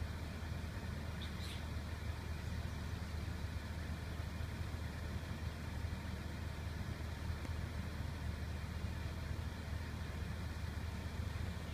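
Steady low rumble with a faint hiss over it, unbroken throughout, and one short high chirp about a second and a half in.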